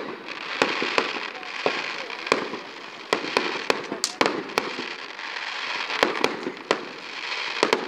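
Fireworks display: aerial shells bursting in a rapid, irregular series of sharp bangs, about fifteen in all, over a continuous crackling hiss.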